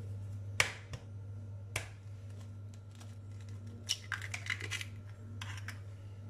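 An egg being cracked: two sharp taps of the shell against a hard edge, then about four seconds in a short run of crackling as the shell is pulled apart and the egg drops into a plastic bowl, over a steady low hum.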